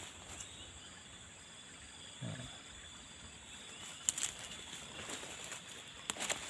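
Tropical forest ambience: a steady high-pitched insect chorus, one tone pulsing on and off evenly. A brief low sound comes about two seconds in, and a few sharp snaps of footsteps on dry leaves and twigs come about four and six seconds in.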